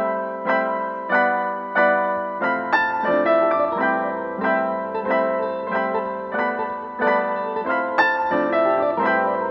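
Background piano music, an even run of notes at about two a second.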